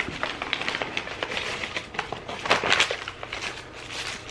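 Paper sandwich wrapper crinkling and rustling as it is pulled open: a dense run of small crackles, with a louder cluster about two and a half seconds in.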